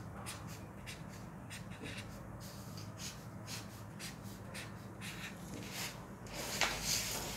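Ballpoint pen drawing on paper: a run of short, scratchy strokes. Near the end there is a louder rustle as the paper, ruler and tape measure are shifted on the table.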